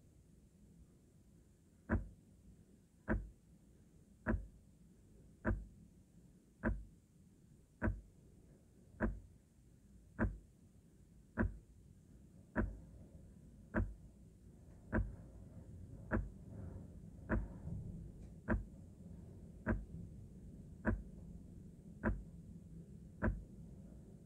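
Ticking sound of a Samsung QLED TV's 'Gravity' ambient mode: a sharp click about once every 1.2 seconds, starting about two seconds in, over a low steady hum.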